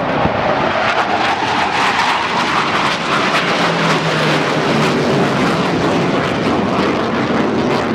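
A CF-18 Hornet fighter jet's twin General Electric F404 turbofan engines passing overhead in flight: a loud, steady rush of jet noise.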